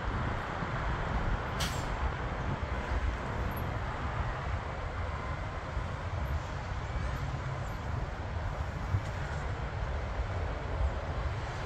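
Steady low rumble of road traffic close by, mixed with distant business-jet engine noise from the airport runway. A single sharp click sounds a couple of seconds in.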